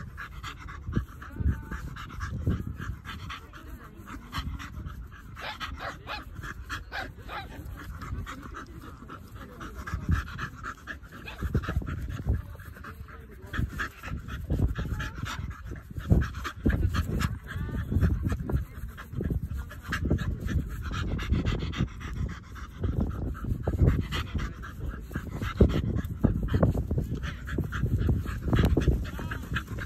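White bull terrier panting hard, open-mouthed, as it plays with a soccer ball, with a low rumble underneath.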